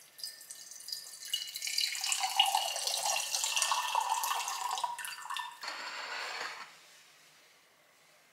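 Cold-brewed black tea poured from a plastic bottle into a glass, splashing and gurgling, the pitch rising as the glass fills. The pour stops about five and a half seconds in, followed by a second, shorter rush of noise.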